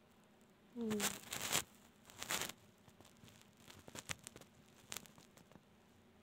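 Rustling and scratching of fur and fabric rubbing close against a phone's microphone as a kitten squirms, in two loud bursts in the first few seconds, followed by softer scattered scratches and taps.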